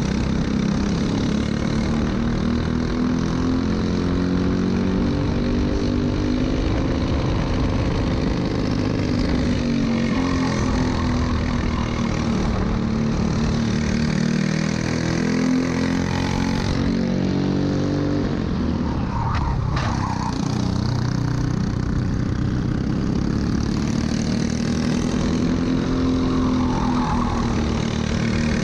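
Briggs & Stratton LO206 four-stroke single-cylinder kart engine running at racing speed close to the microphone, its pitch rising on the straights and falling as the kart slows for corners, dipping lowest and climbing back about nineteen seconds in.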